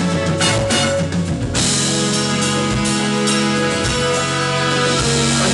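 Live band playing rock-flavoured music: drum kit and electric guitar under held chords.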